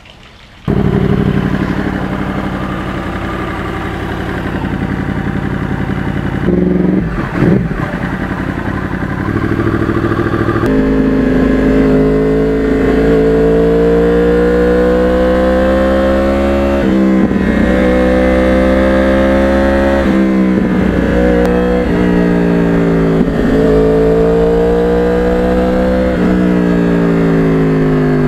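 2009 Yamaha R1's crossplane inline-four, fitted with a custom carbon exhaust, heard from the bike under way. It runs fairly steadily at first, then over and over rises in pitch for a few seconds and drops sharply as it is shifted up.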